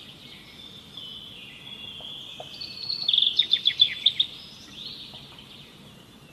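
Wild birds calling and chirping over a faint background of insects, with a quick run of loud, repeated chirps about three seconds in that lasts just over a second.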